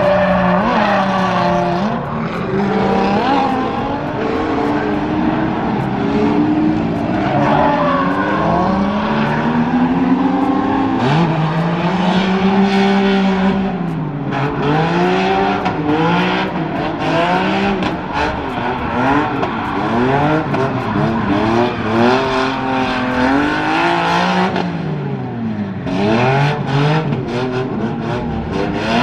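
Drift car engine revving hard, its pitch climbing and dropping again and again every second or so as the driver works the throttle through the slides, over the screech of the rear tyres spinning and sliding on the asphalt.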